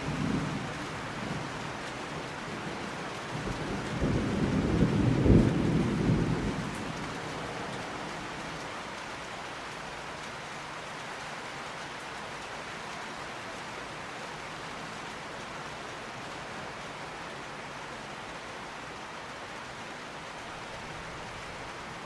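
Steady rain falling, with a low rumble of thunder that swells about four seconds in, peaks about a second later and fades away by about seven seconds, leaving the rain alone.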